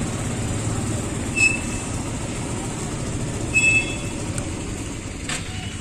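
Motor scooter being ridden at low speed: engine running with wind and road noise on the microphone, a steady low rumble, with two short high squeaks about a second and a half and three and a half seconds in.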